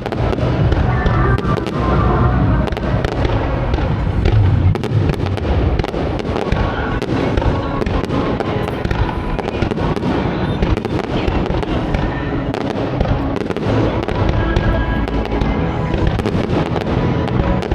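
Fireworks display going off in a dense, continuous barrage of bangs and crackles with no pauses.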